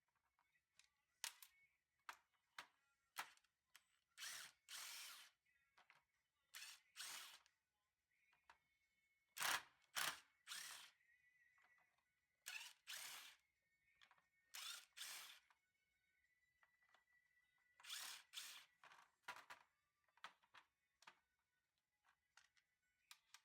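A small power tool's motor run in short bursts of under a second, about fifteen times, with sharp clicks in between.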